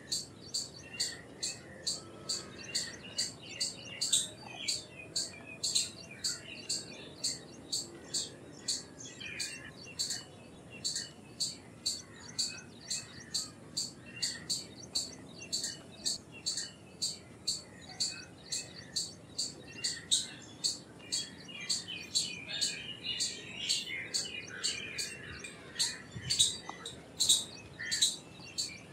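Indian palm squirrel calling: a long, steady series of sharp, high-pitched chirps, about two to three a second, with softer twittering underneath.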